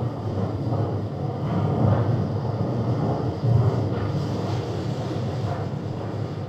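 Low, uneven rumbling noise from an outdoor recording at a seawater pumping outlet on sea ice.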